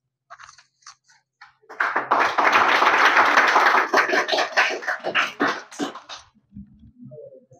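A small group clapping: a few scattered claps, then steady applause for about four seconds that dies away.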